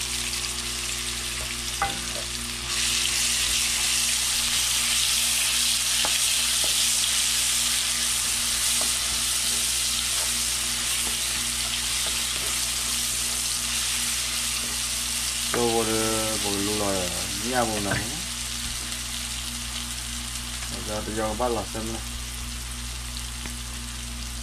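Hot oil sizzling steadily in a nonstick frying pan as chopped aromatics fry, stirred with a wooden spatula; the sizzle grows louder about three seconds in and eases off after the middle.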